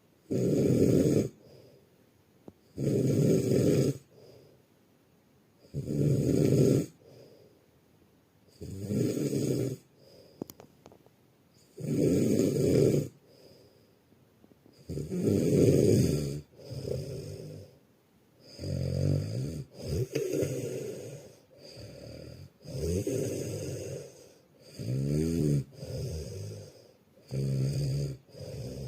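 A dog snoring loudly in its sleep. Each snore lasts about a second and comes about every three seconds, then the snores grow shorter and faster in the last half.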